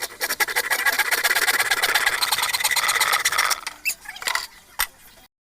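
Hand saw cutting through a wooden plank: a rapid, steady rasp of teeth on wood for about three and a half seconds, then it stops, followed by a few light knocks.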